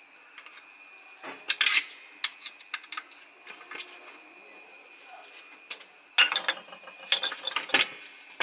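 A rolling trolley jack being handled and set under a car's subframe: irregular metallic clinks and clatter, in a short burst about a second in and a longer one from about six seconds in.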